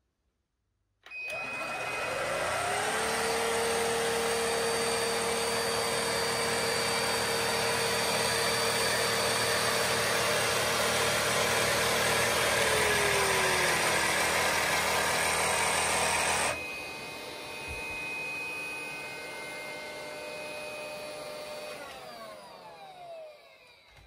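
Cecotec Conga Popstar 2900 ErgoFlex Animal cordless stick vacuum switched on about a second in: its motor whines up to speed and runs steadily and loudly. About thirteen seconds in its pitch drops. A few seconds later it turns suddenly much quieter, and near the end the pitch falls as it winds down.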